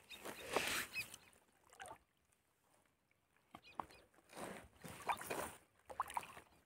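Water splashing and sloshing in several short bursts, with a few small gurgling drips between them.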